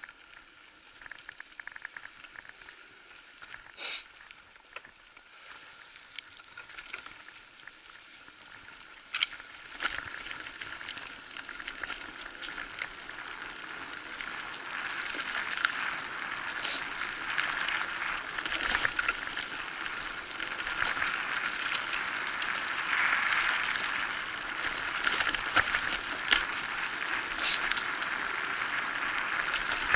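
Electric mountain bike riding fast over a dirt forest trail: tyres rolling and crunching on the ground, with the bike rattling and a few sharp knocks over bumps. The noise grows louder about ten seconds in as the bike picks up speed.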